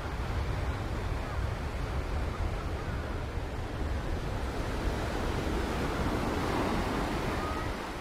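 Surf washing onto a beach, one wave swelling louder about six seconds in, with wind rumbling on the microphone.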